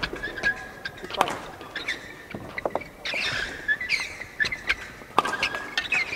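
Court shoes squeaking on the badminton court mat in short, high chirps as players shift their feet, with a few sharp clicks among them, the loudest about a second in and again near the end.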